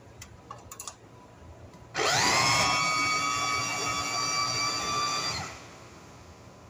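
Electric mini food chopper (press-top, motor-head type) running on cooked tomato and vegetables, grinding them to a fine purée: the motor whine rises quickly as it spins up about two seconds in, holds steady for about three and a half seconds, then winds down. A few light clicks of handling come before it starts.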